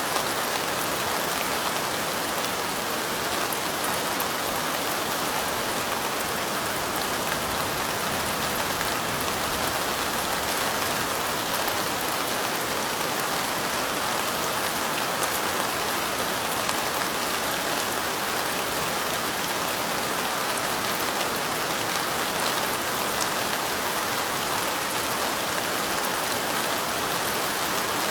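Steady light rain pattering, a dense even hiss of drops with faint ticks from single drops.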